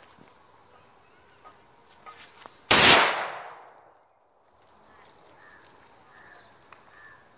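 A firework rocket tied to a rope goes off with a single loud bang about three seconds in, the blast fading away over about a second; it bursts two of the balloons hung beside it.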